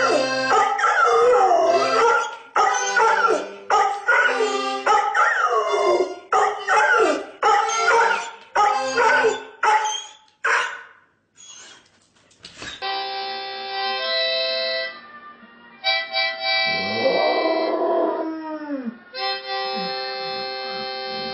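A dog howls and yips along to music, with choppy rises and falls in pitch, then stops for about two seconds. From about 13 s in, a harmonica plays held chords and a dog howls along with it, in long howls that rise and fall, one around the middle of that stretch and another starting near the end.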